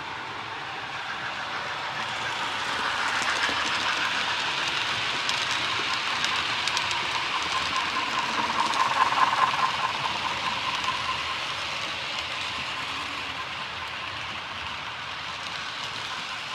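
00 scale model train running past on the layout's track: a steady rolling rattle of wheels on rail with light clicks, growing louder as it passes close, with a motor hum at its loudest about two-thirds of the way through, then fading.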